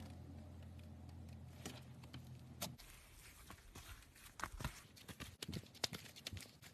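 Slime being squeezed and poked, making irregular small clicks and pops. A low steady hum stops about three seconds in.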